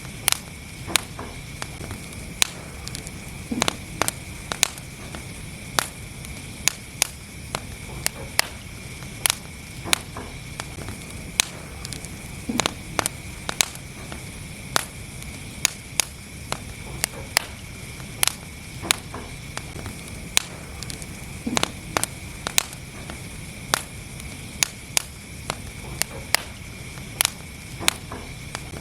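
Wood fire burning in a fireplace, crackling with frequent sharp pops and snaps at irregular intervals over the steady low rumble of the flames.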